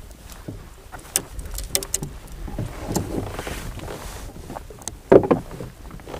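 Landing net being handled in a kayak just after a trout is released: water splashing and dripping as the net comes out of the lake, with several light clicks and knocks against the hull.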